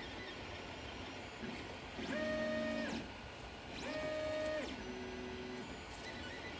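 Ender 3 3D printer's stepper motors whining through print moves. There are two longer tones at about two and four seconds in, each gliding up in pitch as it starts and down as it stops, then a fainter, shorter one.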